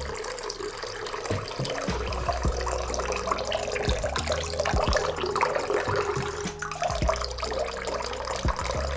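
Water running and splashing steadily, with a low hum underneath.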